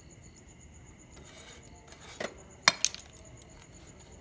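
Metal clinks and a scrape on an iron tava griddle as the makki ki roti on it is handled: a short scrape about two seconds in, then two sharp clinks close together just after.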